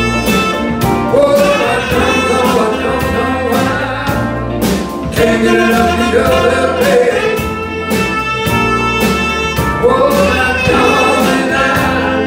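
Live soul band playing: drums keeping a steady beat under electric bass, guitar, keyboard, saxophone and trumpet, with singing.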